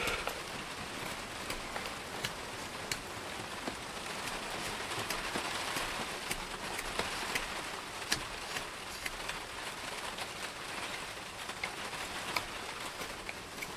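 Rain falling steadily: an even hiss with many scattered sharp ticks.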